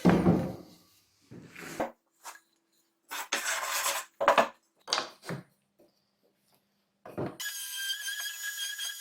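Wooden boards being worked by hand: a heavy wooden thump, then several short bouts of scraping and rubbing on wood with silent gaps between them. Background music returns near the end.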